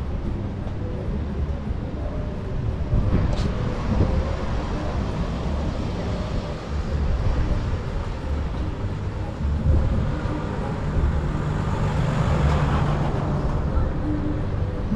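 Street traffic ambience: a steady low rumble of engine, tyre and wind noise, with cars driving past, one swelling louder near the end.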